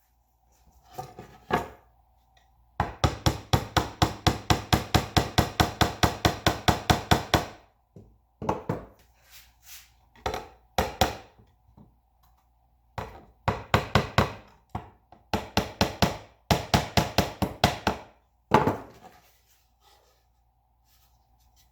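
Rapid, even taps of a hammer or mallet on wood, about six a second, in one long run of several seconds followed by shorter runs and single strikes.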